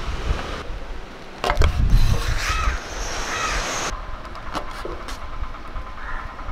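Kitchen knife tapping a wooden cutting board as it slices through stacked pappadam, a few sharp clicks, with a heavier low thump about a second and a half in. A steady hum of distant traffic runs underneath.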